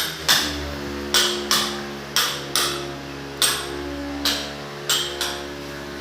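Hammer blows, about nine sharp strikes at an uneven pace, several in quick pairs, over held background music notes.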